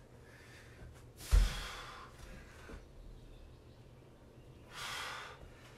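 A man breathing out hard twice while doing plank push-ups, about a second in and again near the end. The first exhale begins with a sharp low thump.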